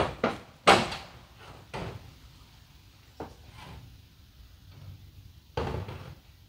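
Hammer blows on a metal shed roof as the tin roofing is taken off: a handful of irregular knocks, a strong one just under a second in and another about five and a half seconds in.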